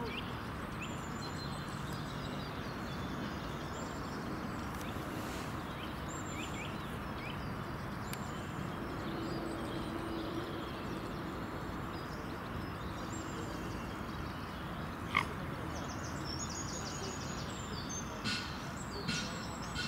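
Lakeside ambience: a steady background hiss with small birds chirping and trilling throughout, and one sharp click about fifteen seconds in.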